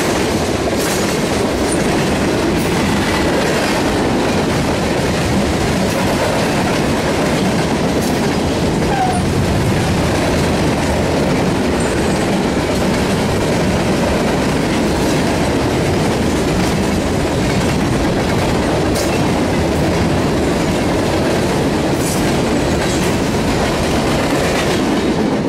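A freight train's tank cars and hopper cars rolling past close by: a loud, steady rumble of steel wheels on rail, with occasional sharp clicks from the wheels.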